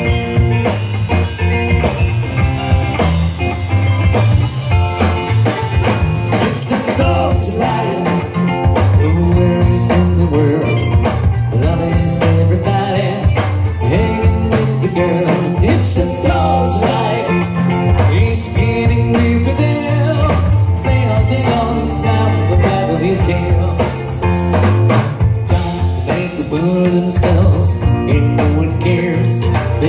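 Live band playing a trop rock song, with steel pans, electric guitars and a drum kit keeping a steady beat under a moving bass line.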